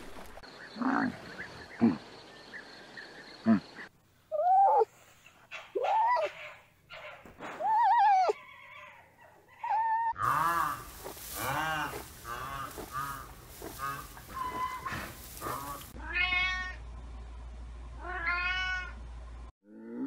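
A string of animal calls from several cut-together clips: short cries that rise and fall in pitch, a quick run of them in the middle, then two longer drawn-out calls near the end.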